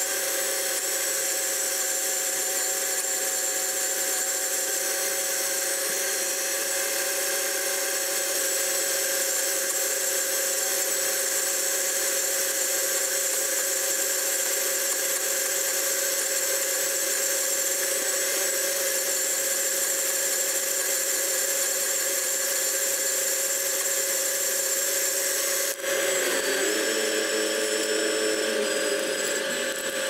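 John Deere 9500 combine harvester running steadily, with a constant mechanical whine and hiss. About 26 seconds in, its pitch drops and settles lower.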